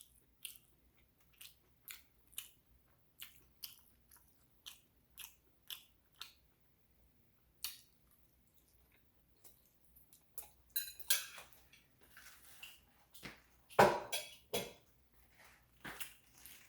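Close-miked mouth sounds of someone chewing meatballs and spaghetti: short wet clicks about two a second, a pause, then messier chewing with two louder knocks near the end.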